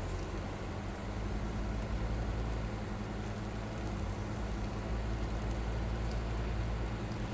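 Car driving along a wet road in the rain: a steady low engine hum under an even hiss of tyres and rain.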